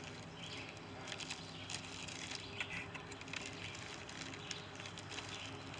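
Birds chirping in the background: short scattered calls over steady outdoor ambience, with a few light clicks.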